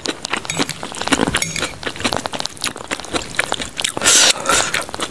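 Close-miked eating: chewing with many small crunches and crackles, and a metal fork clinking and scraping on the plate, a louder crunchy stretch about four seconds in.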